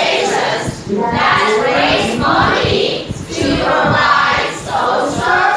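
A class of learners reading English aloud in unison, many voices speaking together in a loud chorus, phrase by phrase with short breaks between phrases.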